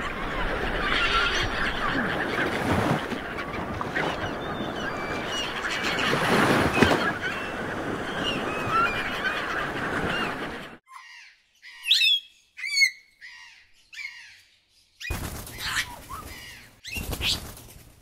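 A dense chorus of many birds calling at once over a steady wash of noise. About ten seconds in it cuts off abruptly, leaving a few separate high chirps with quiet between them and two short bursts of noise near the end.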